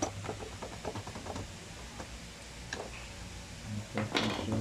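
Small plastic clicks and taps of a projector's lamp module being worked loose by hand, ending in a louder scraping rattle near the end.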